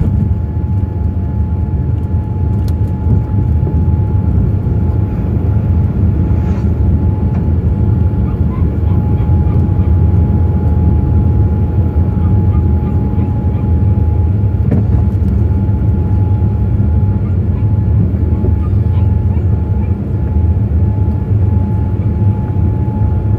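Boeing 787-8 cabin noise during the climb-out just after takeoff, heard from a window seat over the wing: a steady deep rumble from the GEnx engines and the airflow, with a faint high whine held at one pitch.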